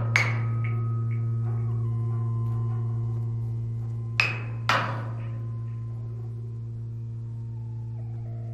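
Mallet strikes on the steel wall of a roll-off dumpster played as a percussion instrument: one just after the start and a pair about four seconds in, each ringing briefly. Under them runs a steady low drone with several held tones above it.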